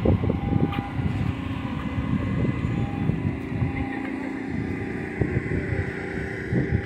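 A vehicle engine running with a low, uneven rumble.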